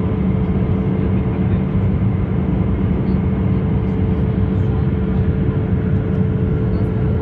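Steady cabin noise of an Airbus A320-214 in flight: a constant rush of airflow and its CFM56 engines, with a steady hum running through it.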